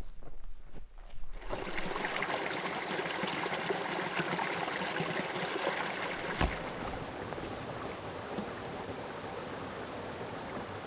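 Footsteps on a trail for about a second, then the steady rush of flowing stream water starts abruptly. A single thump comes about six seconds in.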